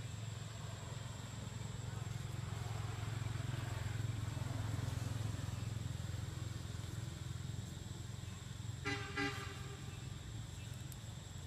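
Low steady hum of a motor vehicle, a little louder in the middle, with a short double toot of a vehicle horn about nine seconds in. A thin, steady high whine runs underneath.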